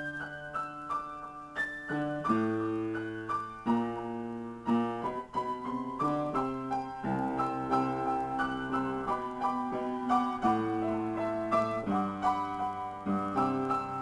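Solo piano improvisation: low sustained chords changing every second or two under a melody of quickly struck notes.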